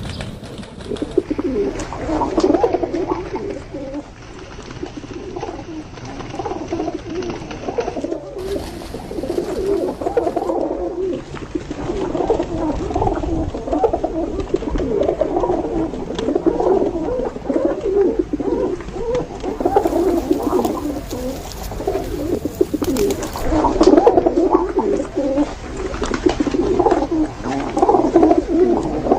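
Several pigeons cooing, their low throaty calls overlapping almost without a break.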